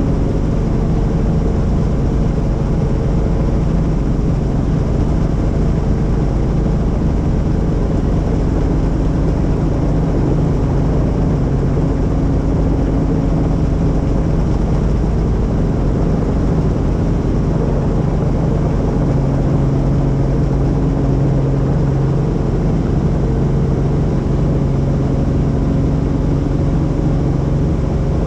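Helicopter running in flight: a loud, steady engine-and-rotor drone with a constant low hum that does not change pitch.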